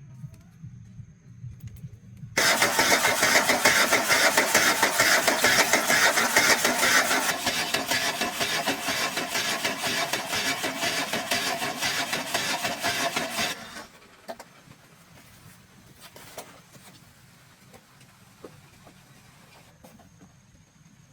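Car engine starting about two seconds in and running with a fast, even pulse for about eleven seconds, then cut off suddenly.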